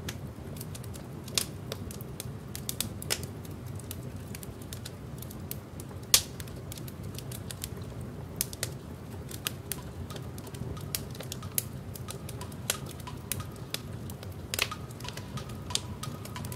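Record-surface crackle: irregular clicks and pops over a steady low rumble, with faint high tones coming in from about ten seconds in.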